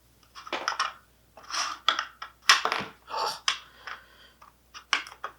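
Hard plastic parts and packaging being handled and unpacked: an irregular string of short clicks, knocks and rustles.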